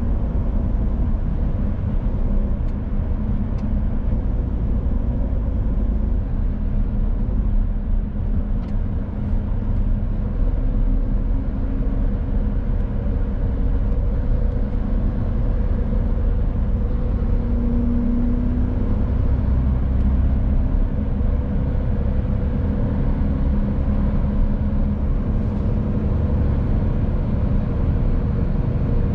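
A 2018 Mercedes Actros truck's diesel engine running at road speed under a steady low rumble of road noise, its engine drone wavering slightly in pitch.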